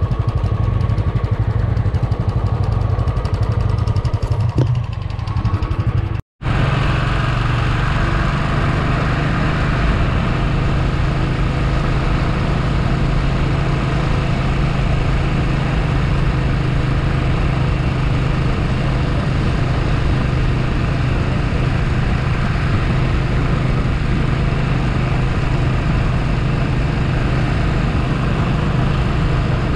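Motorcycle engine running steadily at cruising speed with a constant low hum. The sound cuts out for a moment about six seconds in.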